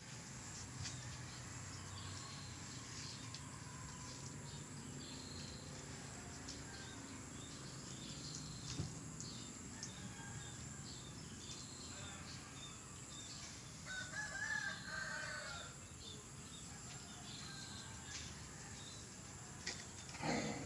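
Faint outdoor ambience with repeated short, high bird chirps. About two-thirds through, one wavering animal call lasts a second or so.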